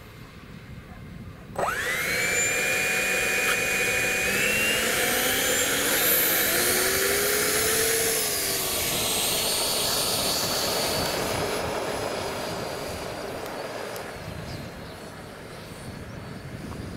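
Radio-controlled F-104 Starfighter model jet's electric ducted fan spooling up suddenly about a second and a half in to a loud, high whine that climbs again in pitch a few seconds later, then fading gradually over the last few seconds as the model moves off down the field.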